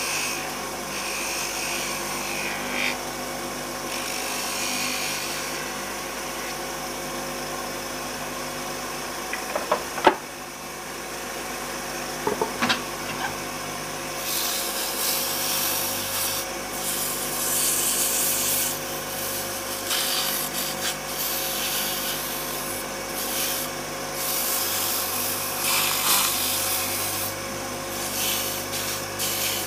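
Wood lathe running steadily with a turning tool cutting a spinning stick of wooden beads, with a few sharp clicks about ten and thirteen seconds in. From about halfway, sandpaper is held against the spinning beads, a rough hiss that swells and fades.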